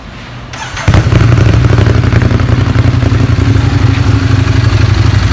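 Ducati Monster 821's 821 cc L-twin engine starting about a second in, then running loud and steady at idle.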